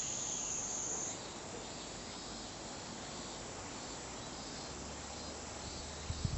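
Kaempfer cicada (niinii-zemi) giving its steady, high-pitched buzzing trill, which stops about a second in, leaving a fainter insect background. A low hum and a few soft knocks come in near the end.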